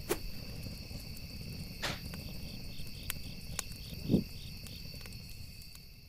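A steady, high-pitched chorus of small calling creatures at night, over a low rumble, with a few soft knocks, the last one a little over four seconds in.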